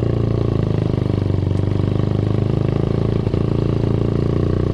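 Motorcycle engine running at steady revs while riding, heard from the rider's seat, with an even, rapid firing pulse and no change in pitch.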